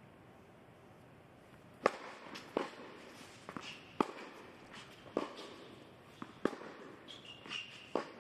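Tennis rally on an indoor hard court: sharp pops of the ball struck by rackets and bouncing, about one a second, starting about two seconds in after a quiet opening.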